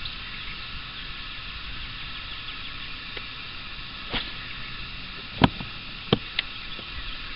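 Fishing reel and rod being handled while casting from a bass boat: a few sharp clicks a little after the middle, one much louder than the rest. Under them runs a steady hiss of open-air lake background with faint bird chirps.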